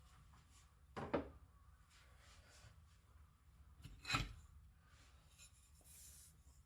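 Two short scraping sounds, about three seconds apart, over a faint steady background.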